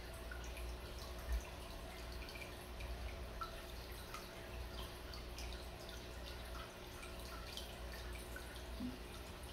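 Water circulating in a Fluval Evo all-in-one aquarium: a stream of small trickling drips and plinks over a steady low pump hum. A single soft thump about a second in.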